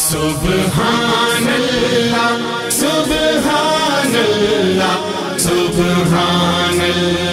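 Unaccompanied Islamic devotional chant (hamd, without duff): a male voice sings 'Subhan Allah' over a steady low vocal drone. The phrase comes round again about every three seconds, each time opening with a sharp 's'.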